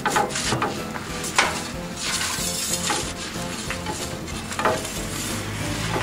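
Background music, with a few short, irregular scrapes of a metal pizza peel on the stone floor of a pizza oven as the pizza is turned.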